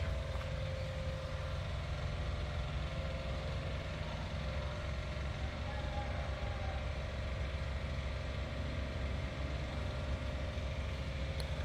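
Rice combine harvester's engine idling: a steady, even low hum.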